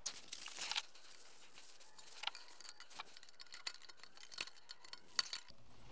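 Faint small metallic clicks and scrapes, with a few sharper ticks, as a steel return spring is worked back onto the rear handbrake shoes behind the brake disc of a BMW E61.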